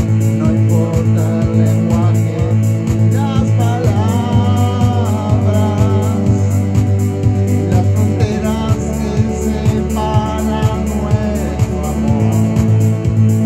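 A man singing over an electronic keyboard accompaniment with a steady rhythmic beat. The voice comes in strongest from about three seconds in and eases off near the end.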